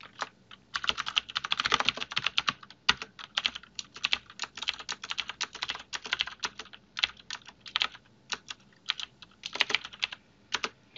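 Typing on a computer keyboard: quick, irregular runs of keystrokes with a few short pauses.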